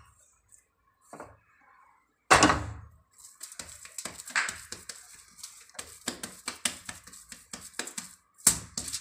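A sudden knock about two seconds in, then a run of soft crinkles and pats as hands press a ball of sesame-jaggery dough onto a sheet of aluminium foil, with another knock near the end.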